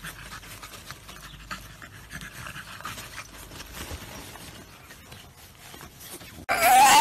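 French bulldog panting softly while it scrambles through a nylon play tunnel, with faint rustles of the fabric. Near the end a different dog lets out a loud, wavering whine.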